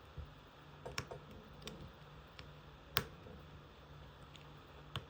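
Scattered small, sharp clicks, about five, the loudest about three seconds in, as a flex cable connector is pressed into its socket inside an iPad Air 4, over a faint steady hum.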